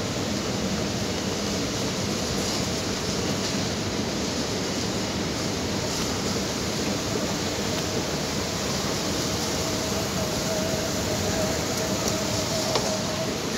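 Steady, even rushing background noise of a shopping mall's interior, with a faint steady tone coming in about eight seconds in.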